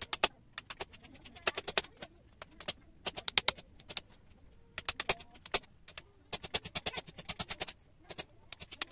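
Golok (machete) blade striking and cutting into a small piece of wood resting on a log chopping block: sharp wooden knocks in quick runs of several strikes, with short pauses between the runs.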